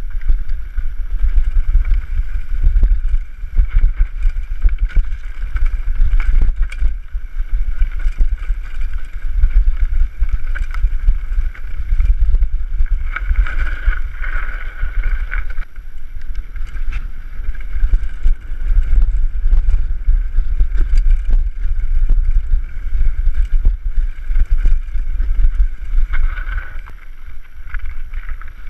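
Wind buffeting the microphone of a camera on a moving mountain bike, with the bike rattling and knocking as it rolls over a rough dirt and gravel track. A hissing tyre-and-gravel noise swells about halfway through and again near the end.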